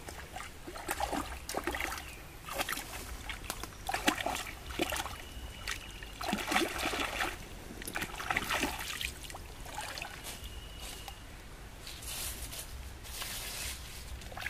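Water splashing and sloshing in a shallow stream as a person wades and works his hands through it, in irregular bursts with trickling between them.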